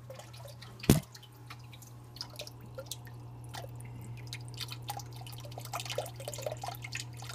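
Submersible water pump cooling a CO2 laser tube, humming steadily in a bucket while its return tube starts splashing and trickling water back in from about two seconds in, a sign the coolant is circulating. A sharp knock about a second in is the loudest sound.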